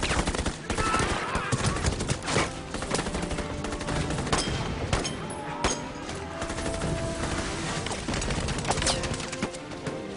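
Dense battle gunfire: many rifle and automatic-weapon shots overlapping in a continuous fusillade.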